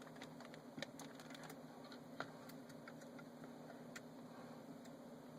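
Near silence: a few faint, scattered clicks and taps of small parts being handled, over a low steady hum.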